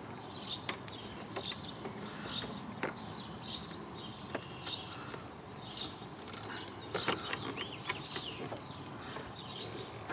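Light clicks and knocks from hands working a plastic radiator filler neck loose, a sharper cluster about 7 s in, with a bird chirping about once a second throughout.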